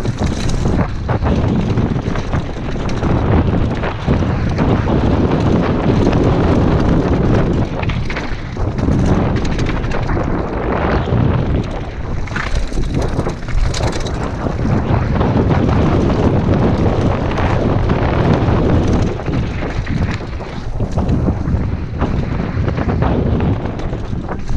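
Wind buffeting a helmet-mounted camera's microphone at speed on a downhill mountain bike, with the tyres rolling over dirt and roots and the bike rattling over bumps in frequent short knocks.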